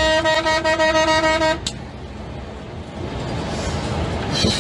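A vehicle horn holds one steady note, cutting off about a second and a half in. Then the rush of tornado wind and heavy rain against the vehicle, growing louder near the end.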